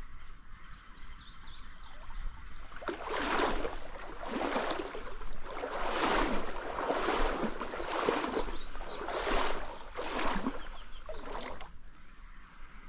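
Someone wading through a shallow stream, legs pushing through the water in a run of swishing strides about a second apart, from about three seconds in until near the end. Beneath them is the steady trickle of the stream.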